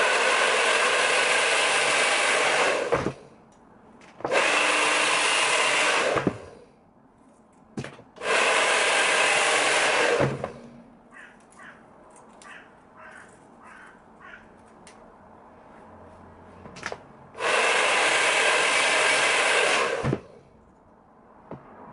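Hand-held hair dryer blowing in four short blasts of two to three seconds each, switched off in between, as a fringe is blow-dried over a round brush.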